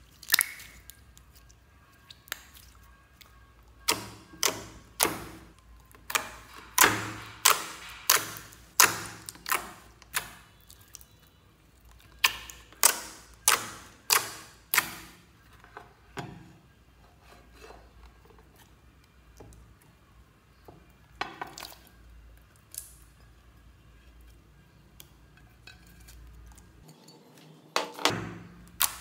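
Clear, glossy slime being squeezed and pressed by hand, making sharp wet pops and clicks as trapped air breaks through. They come about two a second for a stretch, then only now and then.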